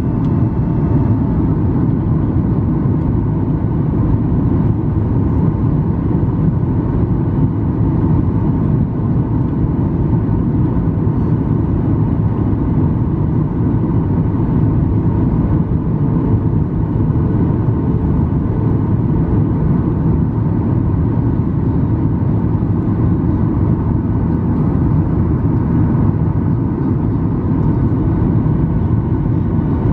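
Steady cabin noise inside a Boeing 737-800 on approach to landing, from a seat over the wing: a deep, even rumble of airflow and the CFM56-7B turbofan engines, with faint steady whining tones above it.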